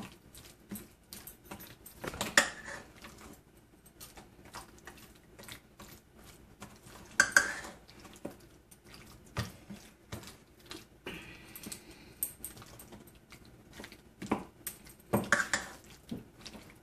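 Spatula stirring chicken pieces in a thick yogurt marinade inside a stainless steel mixing bowl: irregular scraping and clinking against the metal, with a few louder clanks.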